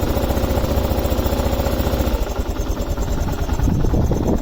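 2001 Kawasaki KLR 650's single-cylinder four-stroke engine idling from a cold start, with the choke just turned on. Its steady note becomes less even about two seconds in.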